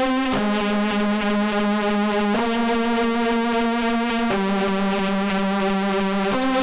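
Background music: sustained synthesizer chords that change about every two seconds.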